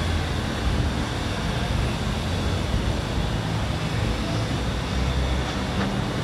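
Steady street traffic noise: a continuous hum of passing vehicles with a low engine rumble.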